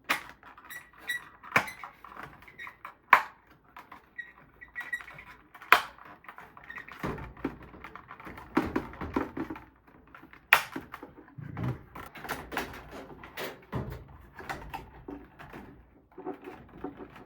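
Plastic parts and wiring of a washing machine's control panel being handled: a string of sharp clicks and knocks over rustling, with a few duller thuds in the second half.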